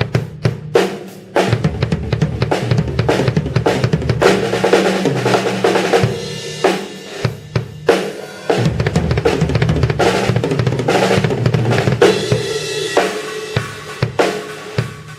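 Sonor Force 2007 drum kit played solo: busy fills on toms, snare and bass drum under ringing cymbals. The playing breaks off briefly about seven seconds in, then picks up again and thins to separate hits near the end.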